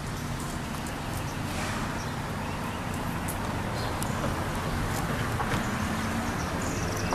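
Steady outdoor street ambience: a low traffic rumble with scattered light clicks and a few faint high chirps near the end.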